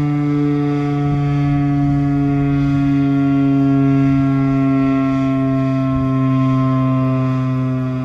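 Federal Signal Thunderbeam RSH-10 outdoor warning siren sounding its steady alert tone, loud and held, its pitch sagging slightly lower and its loudness swelling gently every couple of seconds.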